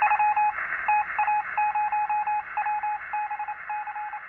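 Morse code: a single beeping tone keyed on and off in short and long pulses, with a buzzy edge, slowly fading away.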